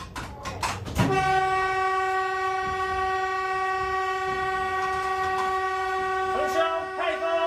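A Taiwan Railway Administration train's horn sounding one long steady blast, starting about a second in after a few sharp knocks, heard from inside the driver's cab. It is sounded in mourning for rail crash victims.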